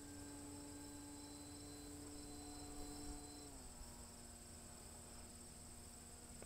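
Faint, steady hum of a small RC plane's motor and propeller in flight, its pitch stepping down slightly about halfway through, over a steady high insect trill.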